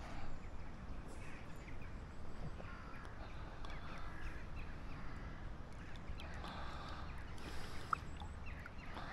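Ducks quacking faintly in the background, a few short calls at a time, over a steady low rumble.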